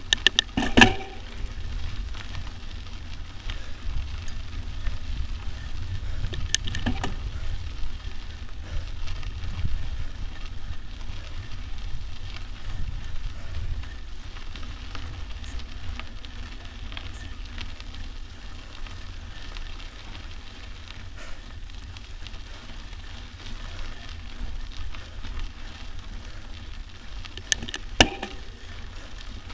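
Mountain bike riding over a dirt and gravel track: tyres crackling over the loose surface and the bike rattling, over steady wind rumble on the microphone. Sharp knocks from bumps come near the start, at about seven seconds and near the end.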